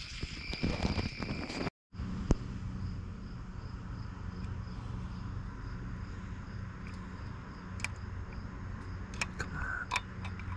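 Light metal clicks and scrapes of a small pick working inside a spark-plug well of a Honda CBR929RR cylinder head, trying to free a tool stuck on a seized spark plug, with a few sharp clicks in the second half over a steady low hum. In the first two seconds a high steady chirring plays, then cuts off abruptly.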